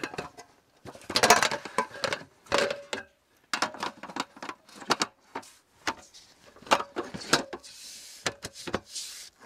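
Slats of a roll-up camp table top clattering as they are unrolled and laid onto a folding metal frame: a run of irregular clicks and knocks, with a stretch of scraping near the end.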